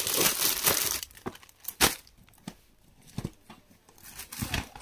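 Sarees being handled and unfolded: a loud rustle and crinkle for about the first second, then a few scattered sharp clicks and taps.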